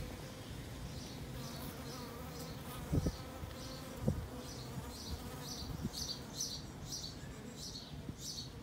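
Honeybees buzzing steadily as they crowd around water, with two low thumps about three and four seconds in.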